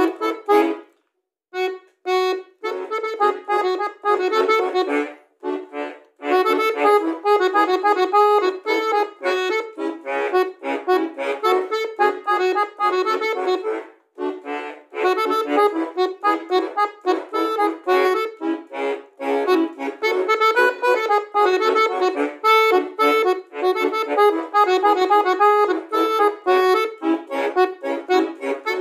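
Bayan, a Russian chromatic button accordion, playing a pop melody over rhythmic chords, with a short pause about a second in followed by a few detached staccato chords, and brief breaks again near the middle.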